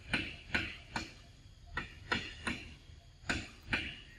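Long-tailed macaque chewing soft, ripe mango with wet smacking clicks of the mouth, about two a second, some coming in quick pairs.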